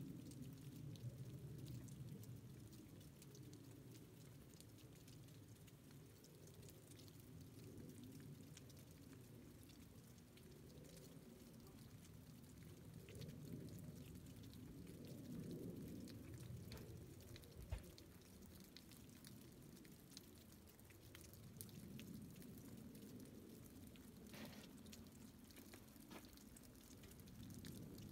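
Faint, low rumble of an Embraer 175 regional jet flying high overhead, swelling and fading slowly. Small scattered clicks, and a single thump about two-thirds of the way through.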